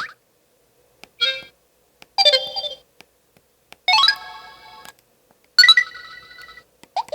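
Samsung Anycall V840 mobile phone's built-in alert and effect tones, played one after another: a short chime, then three longer electronic tones of under a second each, each a different melody, separated by brief silences, and a quick rising blip near the end.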